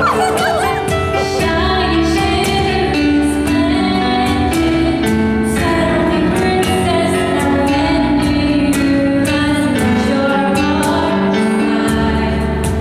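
Live acoustic music from a small band: plucked guitar chords under a sustained melody line. The music fades out right at the end.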